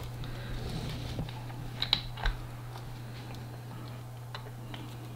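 A few scattered light clicks and taps from handling a couch leg, screw and small handheld screwdriver, two of them close together about two seconds in, over a steady low hum.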